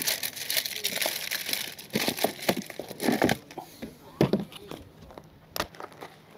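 Crinkling and rustling of plastic packaging, with scattered clicks and knocks from fishing tackle being handled at a tackle box.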